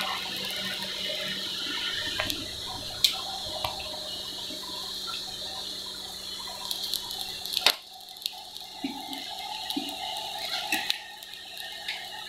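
Blacksmith's coal forge fire under an air blast, a steady rushing hiss, with a few sharp clicks or taps, the loudest a little past the middle.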